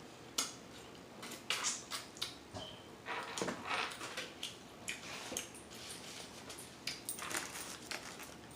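Close mouth smacking and chewing while eating chicken wings: an irregular run of short smacks and clicks.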